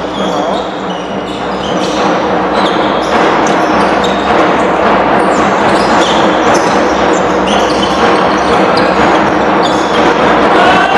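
Basketball game in a sports hall: a ball dribbling on the hardwood court and sneakers squeaking, over a steady crowd hum that grows slightly louder toward the end.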